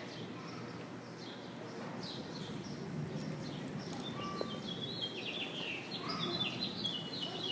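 Small birds chirping over a steady low background noise, with a quick run of high stepped chirps in the second half.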